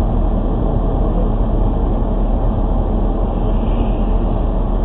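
Steady low rumble inside a car as it creeps to a stop in traffic, picked up by a dash camera's microphone.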